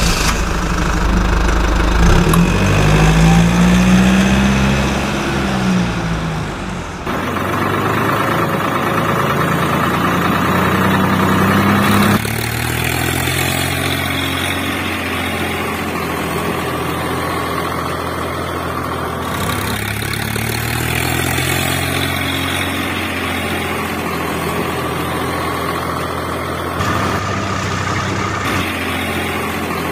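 Tractor engine running, its pitch swelling up and back down every couple of seconds. The sound changes abruptly about 7 and 12 seconds in.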